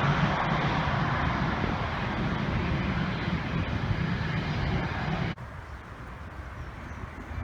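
Jet airliner on final approach passing low overhead, its engine noise slowly fading. About five seconds in the sound cuts off abruptly, leaving a quieter steady background.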